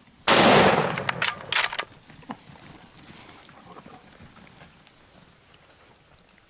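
A single close rifle shot, very loud, with a long echo that dies away over about a second and a half, followed by a few quick sharp clicks.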